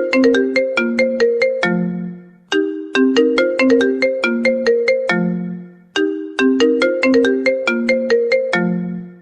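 Smartphone ringtone: a short melody of quick ringing notes that opens on a low note and loops about every three and a half seconds.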